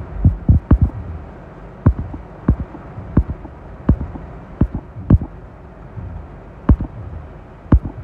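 Heavy rain hissing steadily on a car, heard from inside the cabin, with about a dozen irregular heavy thuds on the car body, the loudest around a third of a second in, at about five seconds and near the end.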